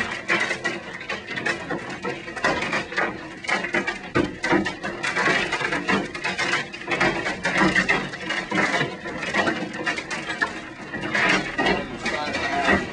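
Large hailstones, golf-ball to baseball size, pounding a high-rise building in a dense, irregular clatter of hard impacts that rises and falls in intensity.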